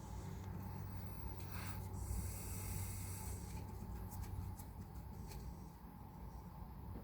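A person sniffing and drawing breath through the nose as an allergy sneeze builds: a short sniff a little under two seconds in, then a longer in-breath lasting about a second and a half, with a few faint clicks later. A steady low hum sits underneath.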